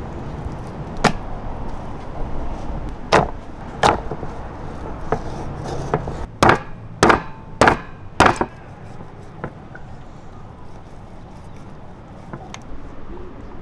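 A knife chopping through rib meat onto a wooden cutting board. A few spaced strikes come first, then four in quick succession about half a second apart, then a couple of lighter taps.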